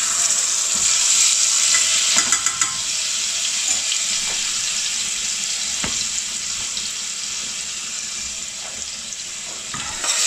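Garlic-ginger paste sizzling in hot vegetable oil with whole spices, frying until it turns slightly brown. The sizzle starts loud and eases off gradually, with a few clicks of a utensil against the pan about two seconds in.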